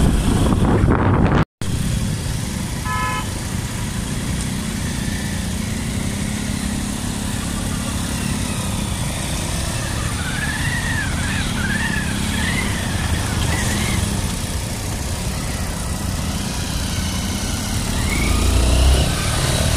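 Motorcycle engine running steadily while riding slowly over a muddy, rutted dirt road, with a short horn toot about three seconds in. The engine grows louder near the end.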